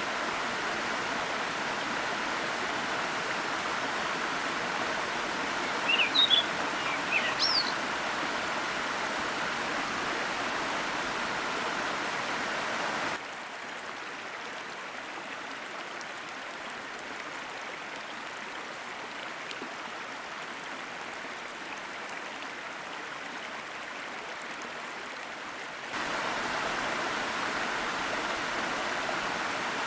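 Forest waterfall rushing steadily, with a few short bird chirps about six seconds in. The water drops abruptly to a softer rush about a third of the way through and comes back up near the end.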